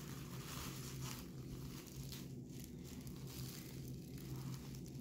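Plastic bubble wrap crinkling and rustling as it is unwrapped by hands in nitrile gloves, with a faint steady low hum underneath.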